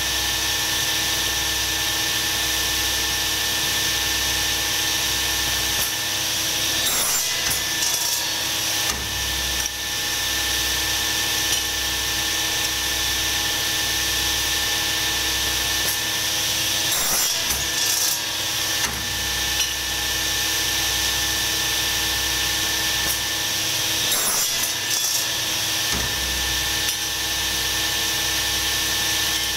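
Electric power tool running steadily, a hum of several steady tones over a hiss. Its sound briefly roughens and shifts about 7, 17 and 24 seconds in.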